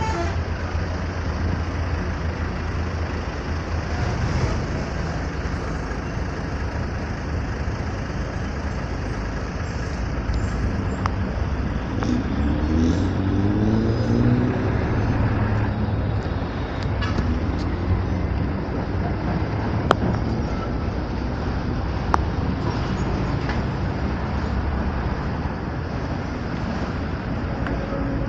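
Roadside traffic noise: the steady rumble of engines and tyres going by, with one vehicle's engine rising in pitch as it speeds up and passes about halfway through.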